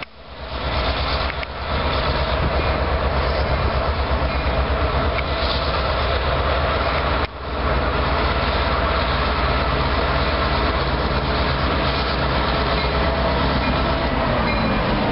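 New England Central diesel locomotives passing close by, their engines running with a loud, steady low drone.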